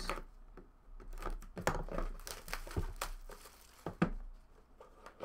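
Hands opening a white cardboard trading card box: rustling and crinkling of cardboard and wrapping, with light knocks and scrapes as the box is handled, the sharpest knock about four seconds in.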